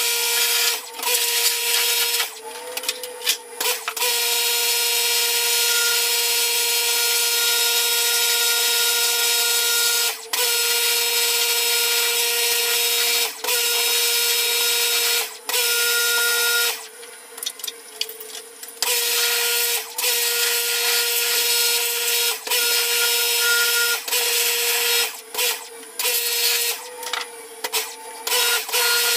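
Electric pressure washer running, a steady motor whine over the hiss of the water jet, stopping and starting again many times as the spray is worked, with one longer pause about two-thirds of the way through.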